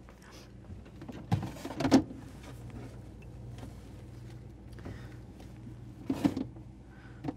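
A refrigerator door pulled open with a couple of thumps, then a steady low hum while it stands open and things inside are moved about, with another short clatter about six seconds in.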